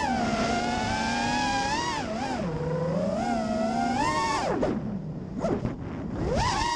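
The brushless motors and 5-inch props of a freestyle FPV quad (Racerstar 2205 2300kv motors) whining, their pitch rising and falling with the throttle. About four and a half seconds in the whine drops away as the throttle is cut, with a few short blips, then climbs back up near the end.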